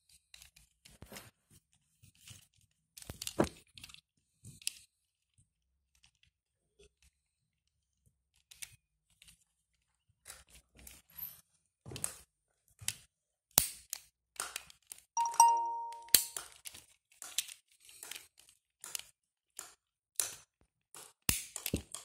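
Hard plastic Lego Duplo Toolo parts being handled: irregular clicks and clacks as wheels are threaded onto a vehicle frame and their central screws are turned tight with a toy screwdriver. The clicks come thicker in the second half, with a brief pitched squeak about fifteen seconds in.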